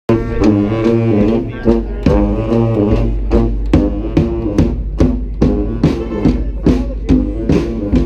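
Street brass band playing: several horns in harmony over a steady drumbeat of about two and a half beats a second, with a low bass line coming in about a second in.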